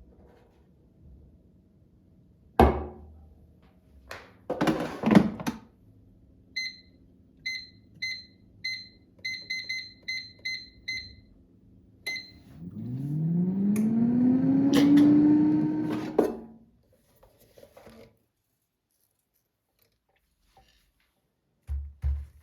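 A knock and a short rattle, then a run of short electronic button beeps. After them a small appliance motor spins up with a rising whine, runs about three seconds and stops abruptly.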